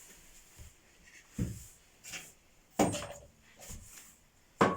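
A handful of separate knocks and bangs with quiet gaps between them, the two sharpest about three seconds in and near the end, each with a short ring after it.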